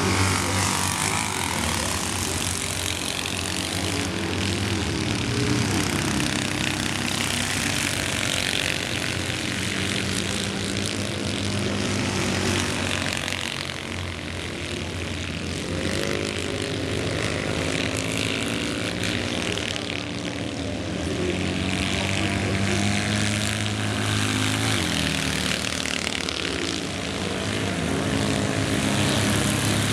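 Several Citroën 2CV racing cars' air-cooled flat-twin engines buzzing at once, revving up and down as they race.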